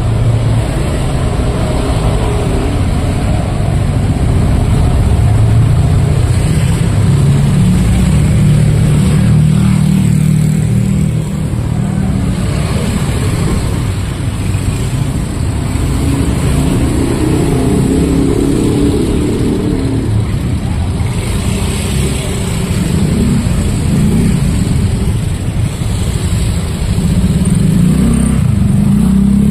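Busy road traffic: motor vehicle engines, motorcycles among them, running and passing continuously, the hum rising and falling as they go by.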